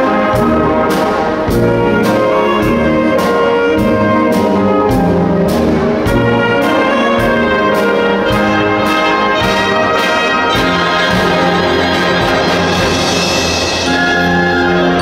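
School wind band (trumpets, trombones, saxophones, flutes, tubas, drum kit) playing a Disney medley live, with a steady drum beat under the brass until about ten seconds in, after which the beat drops out and the band holds sustained chords.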